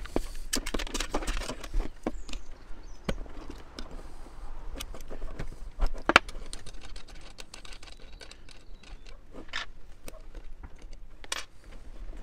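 Small plastic case of a Juntek battery-monitor shunt being pulled apart and handled on a wooden table, with the shunt's terminal bolts and nuts being handled: scattered clicks, taps and light scrapes, with one louder knock about six seconds in.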